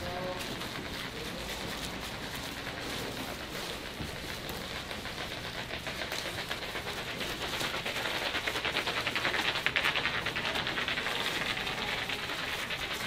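Thin plastic gloves rustling and crinkling as hands lay fillings onto a sheet of seaweed for gimbap, over a steady background hiss. The crinkling grows denser and louder past the middle.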